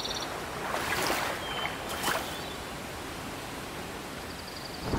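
Wetland ambience: a steady soft hiss of open-air background noise. A rapid pulsed high trill stops just after the start, and a couple of soft brief noises come about one and two seconds in.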